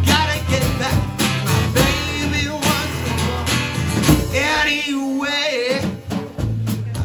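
Live acoustic blues-rock: a man singing over a strummed acoustic guitar, with a drummer keeping time on a snare drum, bass drum and cymbal, played through a small PA.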